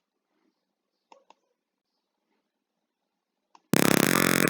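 A few soft computer-mouse clicks, then near the end a loud, steady electronic buzzer tone starts abruptly: the virtual piezo buzzer in a Tinkercad Arduino simulation sounding as the alarm triggers.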